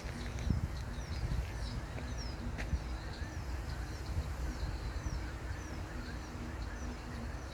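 A small bird singing a run of short, high, falling chirps, repeated every half second or so, over a steady low rumble.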